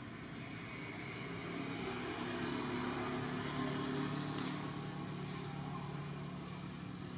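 A motor vehicle's engine passing at a distance: a low, even hum that swells over the first few seconds, peaks about three to four seconds in, then slowly fades.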